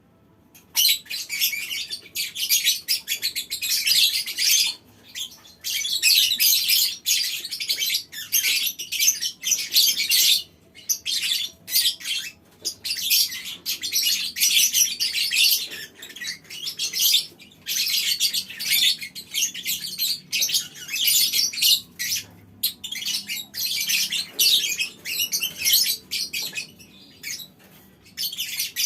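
A colony of lovebirds chattering in long, rapid, high-pitched runs, the continuous 'ngekek panjang' chatter, broken by brief pauses every few seconds.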